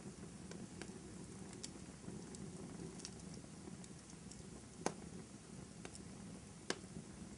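Wood fire crackling in a fireplace: a soft steady low rumble with scattered small ticks and two sharper pops, about five seconds in and again near the end.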